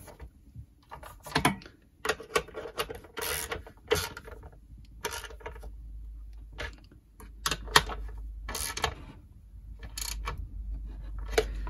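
Socket ratchet clicking in short runs, with metal clinks and knocks from the socket and spanner, as the mounting nuts on a Stihl TS410 cut-off saw are tightened.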